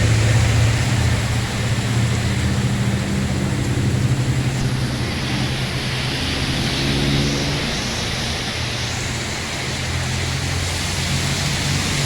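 Heavy rain falling steadily, with a motor vehicle's engine running close by. The engine's hum shifts in pitch around the middle.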